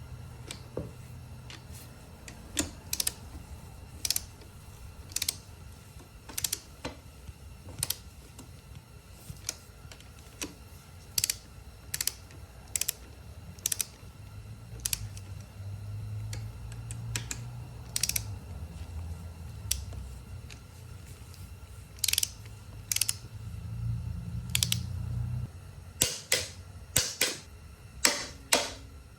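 Ratcheting torque wrench clicking in short, uneven runs as the cylinder head bolts are tightened down. A low hum comes and goes underneath.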